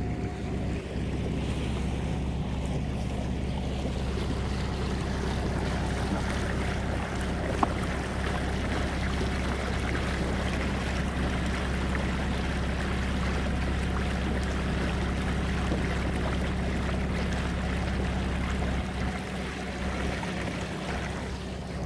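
Water rushing and splashing along the hull of a small sailing boat under way, over a steady low drone.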